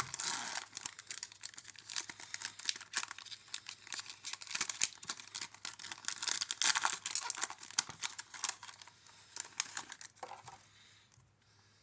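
Plastic wrapper of a Panini Contenders football card pack being torn open and crinkled, a dense crackling that dies down near the end.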